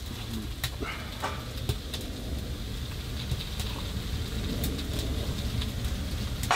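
Sizzling and light crackling from a woodstove cooktop: vegetables frying in butter in a pan over fresh-loaded wood, with scattered small pops over a steady low background noise.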